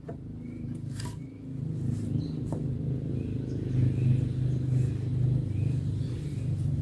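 A petrol engine running steadily, growing louder over the first few seconds, with a couple of light wooden knocks as timber is handled.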